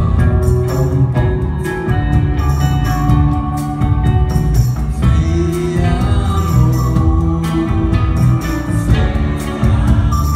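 Live rock band playing a stretch of the song with no sung words: electric guitars, bass and drums.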